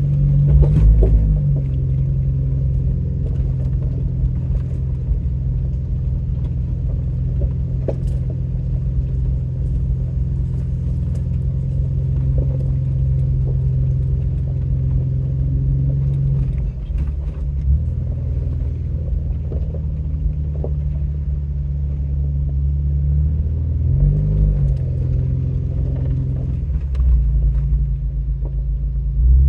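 Vehicle engine and drivetrain rumble heard from inside the cabin while driving off-road on a rough dirt road. It is a steady low drone whose engine note shifts a few times, with a few light knocks.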